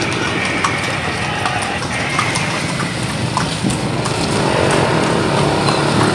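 Horse's hooves clip-clopping on a concrete street as a horse-drawn kalesa rolls along, with a motor engine running and getting louder about two-thirds of the way through.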